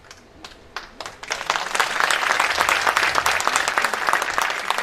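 Audience applauding: a few scattered claps at first, swelling about a second in to full, dense applause.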